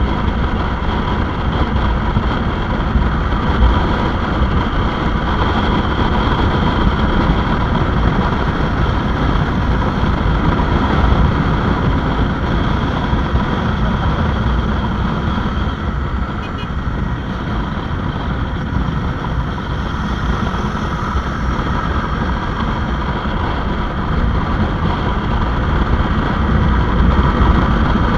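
Motorcycle on the move: wind rushing over the microphone with the engine running underneath. It eases off a little past the middle and builds again near the end.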